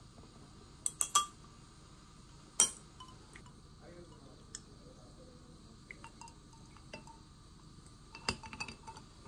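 Glassware clinking while an iced milk coffee is made: ice in a glass tumbler and a glass measuring jug clink as milk and then coffee are poured. There is a cluster of sharp, ringing clinks about a second in, a single loud one at about two and a half seconds, and several lighter ones near the end.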